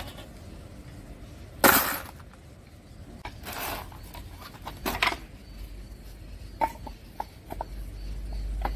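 Three separate scraping strokes of a knife blade on a sharpening stone, the first the loudest, followed by several light clicks.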